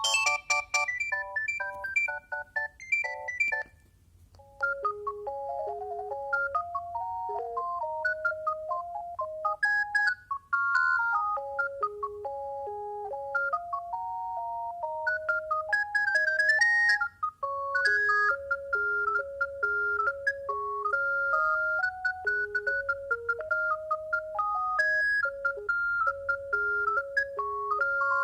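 Alcatel One Touch 320 mobile phone playing its ringtones through its speaker. One tune of quick electronic notes ends about three and a half seconds in, and after a brief pause another simple electronic melody of stepped notes starts and keeps playing.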